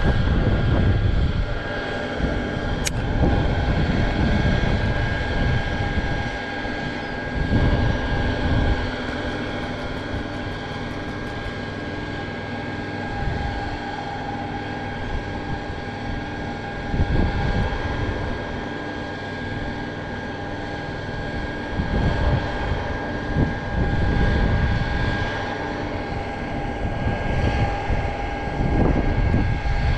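Wind gusting across the microphone in repeated low rumbles, over a steady mechanical hum that holds one pitch throughout.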